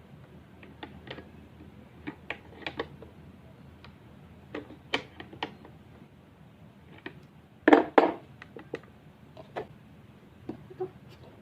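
Irregular clicks and knocks of small hard parts and tools being handled during woodworking assembly, the loudest a pair of knocks about eight seconds in.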